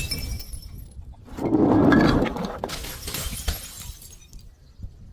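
A glass bottle breaking: a sharp crack at the start with the glass ringing, then a louder crunch about a second and a half in, followed by crackling of the breaking glass.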